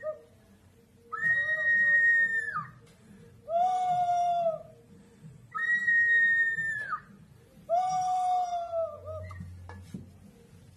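Two clay whistling jars, double-chambered animal-shaped vessels, are tilted in turn so that each gives a whistling call. There are four calls of about one and a half seconds each, alternating a higher tone and a lower one, and each call dips in pitch as it dies away.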